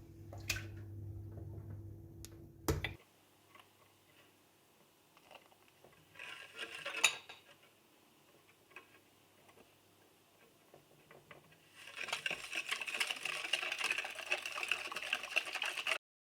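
Kitchen work with dishes and utensils: a low steady appliance hum stops with a click about three seconds in, followed by a few scattered clinks. From about twelve seconds in, a utensil clinks and scrapes rapidly against a dish.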